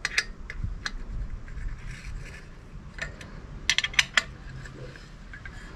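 Light clicks and scrapes from a heat shield on a motorcycle exhaust link pipe being handled and adjusted by hand, with a quick cluster of sharper clicks about four seconds in.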